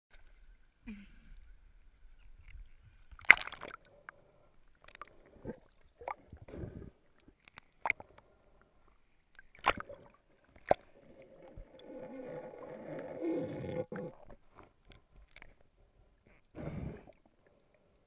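Muffled water sloshing and sharp knocks picked up through a camera's sealed underwater housing, with a longer stretch of dense muffled noise about two-thirds of the way through.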